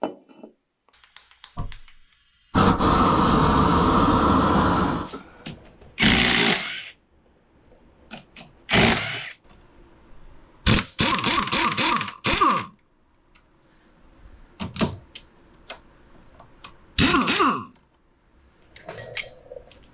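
Power impact wrench running in several bursts, the longest about two and a half seconds, with small metallic clicks and clinks of tools between bursts. It is most likely taking off the ATV's rear axle nut, which turns out to have been under-torqued.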